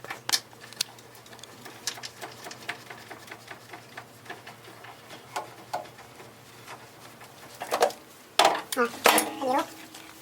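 Small clicks and taps of hands handling plastic and metal fittings as the cold-water inlet filter of a tankless water heater is put back in, with a few louder knocks near the end.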